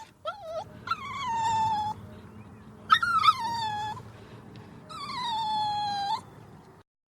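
A dog whining. A couple of short yips are followed by three long whines about two seconds apart, each falling a little in pitch; the sound cuts off near the end.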